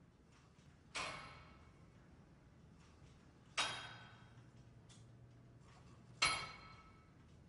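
Three sharp hits, each with a ringing tail that fades over about a second, spaced roughly two and a half seconds apart.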